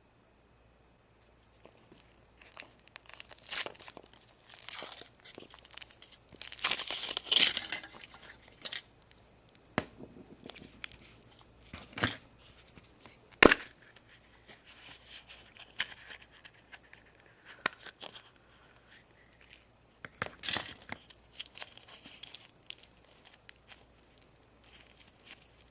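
Foil wrapper of a Kinder Surprise chocolate egg being torn and crinkled off by hand, in bouts, with a few sharp clicks and snaps in between as the egg and its plastic toy capsule are opened.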